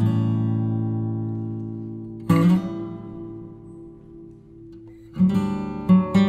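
Background music: an acoustic guitar strumming chords, each left to ring out and fade, with quicker strumming over the last second or so.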